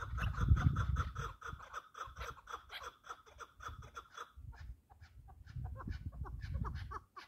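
Partridge calling with a rapid run of clucking notes, several a second, which pause briefly about four and a half seconds in. Low gusts of wind buffet the microphone near the start and again near the end.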